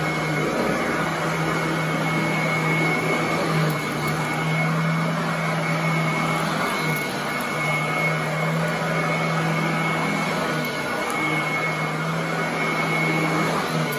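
Royal commercial upright vacuum cleaner running steadily while pushed over carpet: a constant rush of air with a high, steady whine from the motor. Its low hum wavers briefly every few seconds as it is pushed back and forth.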